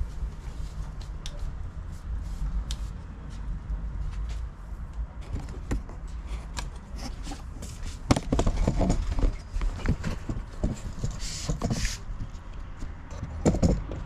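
Handling noise from a camera on a stand being picked up and carried: scattered clicks and knocks over a steady low rumble, turning into a dense run of knocks and rattles from about eight seconds in.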